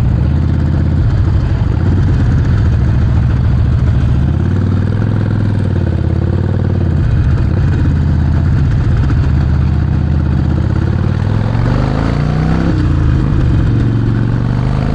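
Harley-Davidson Sportster Forty-Eight's air-cooled 1200 cc V-twin running through a Vance & Hines exhaust while the bike is ridden. The engine pitch rises and falls as the rider accelerates and eases off, with a clear climb about eleven seconds in.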